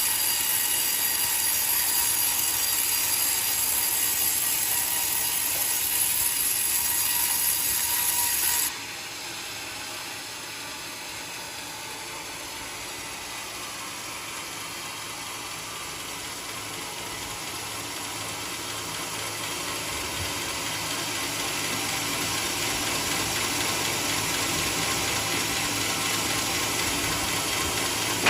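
Portable sawmill running and sawing through a coconut log, a steady mechanical noise with a strong high hiss. About nine seconds in it drops suddenly to a quieter level, then slowly grows louder again.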